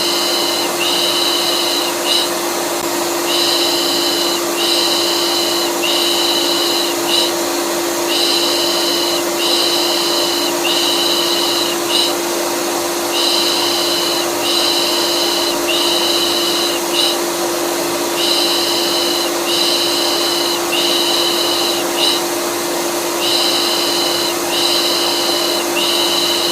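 Vacuum cleaner running steadily with a constant hum, overlaid with a repeated 'pış pış' shushing: three hissing shushes in a row, then a short pause, the pattern coming back every three and a half seconds or so.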